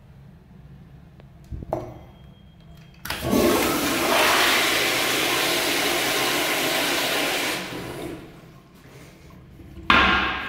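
Wall-hung Kohler Kingston toilet on a flush valve flushing: a short sharp sound, then a loud steady rush of water for about four and a half seconds that tapers off. Another sudden loud sound starts near the end and fades.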